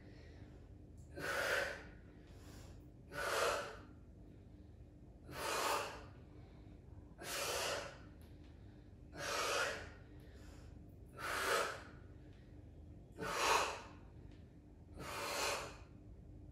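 A woman breathing hard from exertion, a forceful breath about every two seconds, eight in all, one with each lunge rep.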